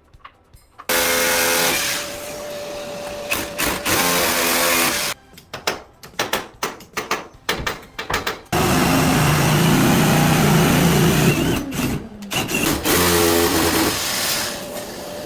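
Electric power tool motor started with a rising whine and run in bursts: a long run, a string of short trigger pulls, then another long run.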